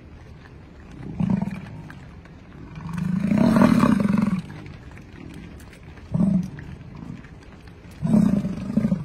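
American bison bellowing: four deep calls, a short one about a second in, the longest and loudest lasting over a second about three to four seconds in, another short one just past six seconds, and a last one near the end.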